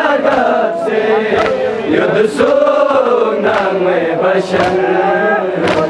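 A group of men chanting a Balti-language noha, a Muharram mourning lament, in unison, with sharp chest-beating slaps of matam about once a second.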